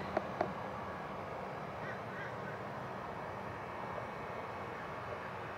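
Faint, steady outdoor background ambience, with two short sharp sounds right at the start and a faint high call about two seconds in.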